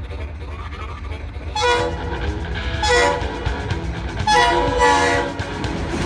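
Air horn of an approaching GP38 diesel locomotive sounding three blasts, the last one the longest, over the steady rumble of the diesel engines.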